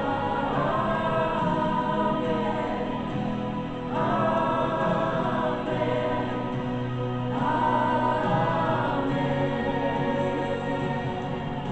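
Congregation and worship team singing a slow gospel worship song, held sung phrases of a few seconds over a steady low keyboard-like accompaniment.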